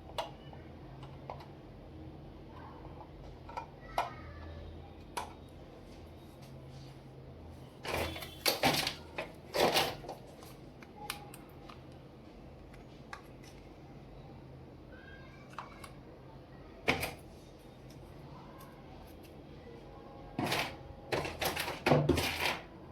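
Small plastic toys being handled: scattered light clicks and taps, with two bursts of clattering and rustling, about eight seconds in and again near the end.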